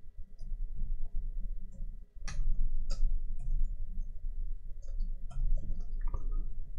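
A handful of computer keyboard keystrokes as sharp, scattered clicks, starting about two seconds in, the first two the loudest, over a steady low hum.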